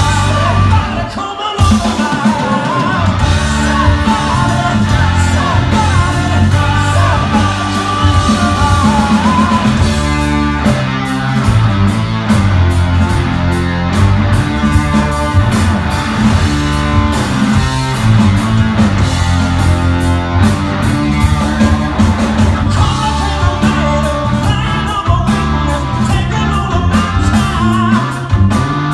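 Live rock band playing loud: a male singer over electric guitars and drums.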